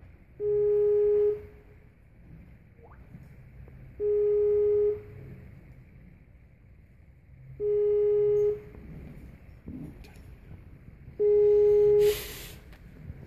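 Outgoing ringing tone of a laptop video-call app while the call waits to be answered: a steady mid-pitched tone about a second long, repeating four times about three and a half seconds apart. A brief hiss near the end.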